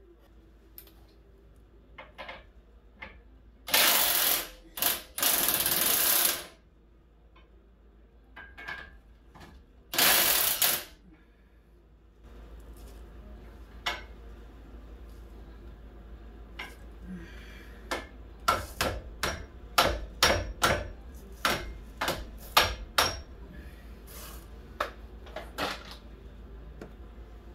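Hand tools working on metal parts. There are three loud bursts of hissing of about a second each in the first half, then an irregular run of sharp metallic clicks and taps, a few a second, in the second half.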